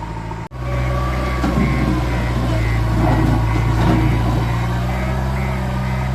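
Diesel engine of a JCB 3DX backhoe loader running steadily under a working load, with a brief dropout about half a second in. Faint short high pips repeat over the engine.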